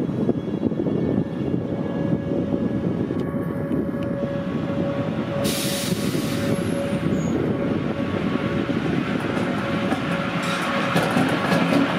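Rhaetian Railway Ge 4/4 III electric locomotive No. 651 moving slowly through the yard: a steady running rumble with a thin, even whine, a brief hiss about halfway, and wheels clicking over rail joints and points near the end.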